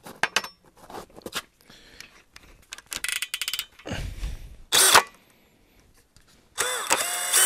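Cordless drill being fitted to a hand-held ice auger: clicks and knocks of metal parts, a quick run of ratcheting ticks from the chuck about three seconds in, and a short knock near five seconds. Near the end the drill motor runs for about a second, rising in pitch as it spins up.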